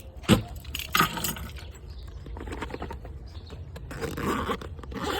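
Two sharp knocks about a second apart, then softer handling sounds.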